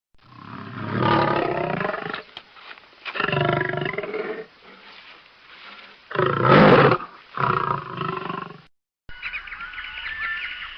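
Animatronic robot animal roaring: four long roars of about a second each, the third the loudest.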